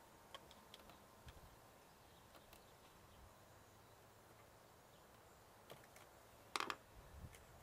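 Near silence broken by a few faint clicks and one louder clack about six and a half seconds in: hands and a tool working at the carburetor and its intake clamps on an ATV engine.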